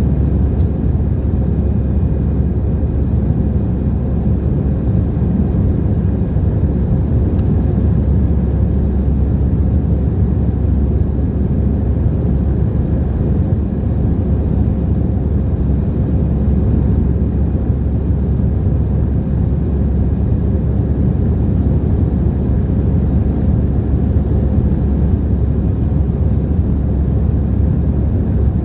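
Steady cabin roar of an Airbus A321 climbing out after takeoff, heard inside the cabin over the wing: the jet engines and rushing air make a deep, even rumble with a faint steady hum on top.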